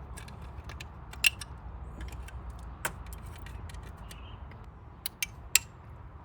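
Plastic notches being cut and snapped off a speaker mounting bracket: a scatter of sharp clicks and snaps, the loudest about a second in and a quick cluster near the end, over a low steady rumble.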